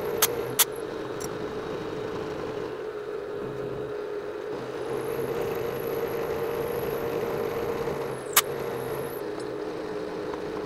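Vertical milling machine running with its end mill cutting a slot in the workpiece as the table is fed by hand: a steady hum, two sharp clicks near the start and one near the end, and a faint high whine for a few seconds in the middle.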